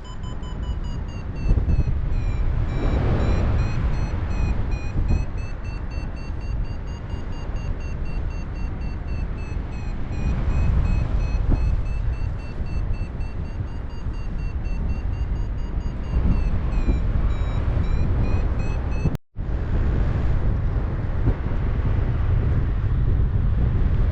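Paraglider's variometer beeping rapidly, its pitch wavering slowly up and down, over heavy wind rush on the microphone from the airflow in flight. The beeping signals the glider is climbing in lift. It stops at a sudden cut near the end, leaving only the wind.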